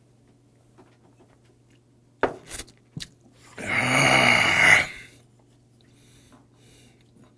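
Two sharp knocks as a drinking glass is set down on a wooden table, then a loud, rasping satisfied exhale ('kyaa') lasting about a second after downing a glass of beer-and-soju.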